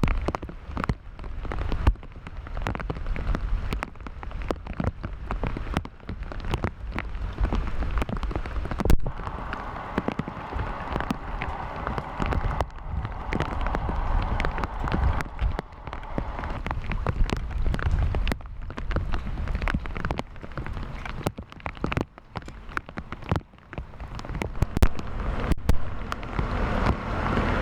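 Rain falling, with many sharp drops striking close by, over a low rumble of wind on the microphone.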